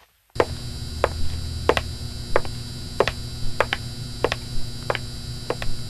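Neon sign sound effect: a steady electrical buzz and hum that switches on a moment in, with sharp irregular clicks about twice a second, like a sign crackling and flickering.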